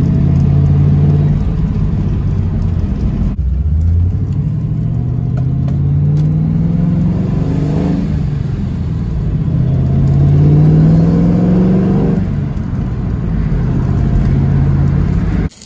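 Supercharged 4.6-litre two-valve V8 of a Saleen Mustang heard from inside the cabin, cruising at low rpm through long-tube headers and large suitcase mufflers, a fairly quiet exhaust note. Twice it climbs in pitch under acceleration and falls back as it shifts up, then holds steady; the sound cuts off abruptly near the end.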